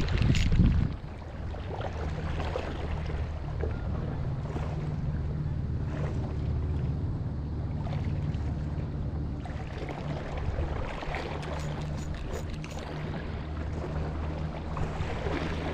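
An engine idling steadily with a low, even hum. A loud rush of wind or water noise fills the first second.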